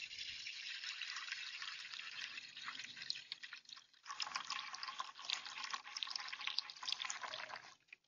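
Water poured from a jug splashing into a shallow saucer birdbath, a steady stream that dips briefly about halfway through and stops just before the end.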